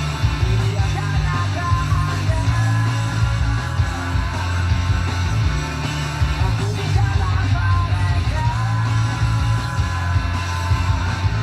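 Rock song with guitar and singing, played back from a cassette tape on a Yamaha KX-390 stereo cassette deck.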